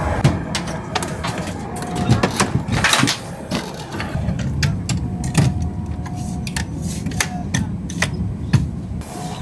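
Irregular clicks and knocks of an airliner seat's plastic storage-compartment lids being opened and handled, over the steady low drone of the aircraft cabin.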